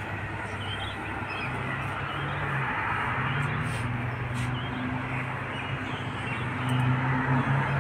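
Birds chirping and calling over a steady low hum and rush of background noise.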